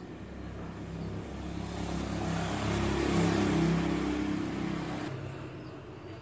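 A motor vehicle passing by: its engine and road noise swell to a peak about three seconds in, then fade away.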